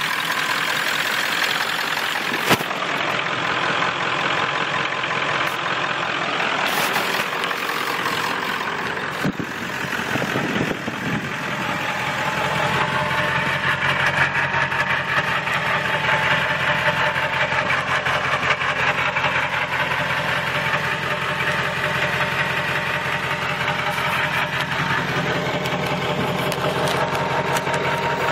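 1997 Ford F-250's 7.3-litre Power Stroke turbodiesel V8 idling steadily, with the turbocharger whistling; a thin steady whistle tone comes in about twelve seconds in. One sharp click about two and a half seconds in.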